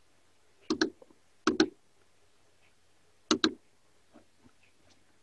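Computer mouse clicked three times, each a quick press-and-release double click: a pair about a second in, another about a second and a half in, and a third a little past three seconds.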